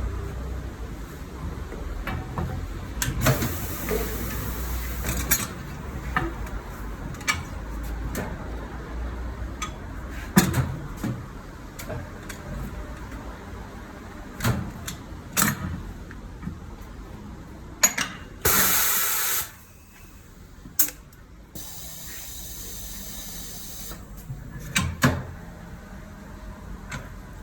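Hiss of compressed air from the tyre-changing air tools, in short bursts: the loudest lasts about a second, some eighteen seconds in. Scattered sharp metallic knocks and clicks of the tools run through it.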